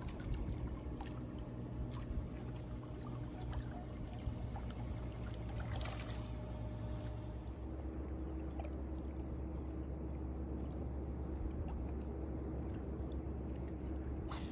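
Water lapping and sloshing as a sea lion swims and rolls beside a boat's hull, with a splash about six seconds in, over a steady low hum.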